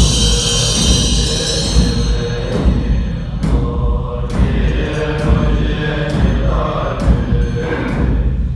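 Tibetan Buddhist ritual chanting with percussion. It opens with a crash that rings for about two seconds, then strikes come about once a second under the steady chant.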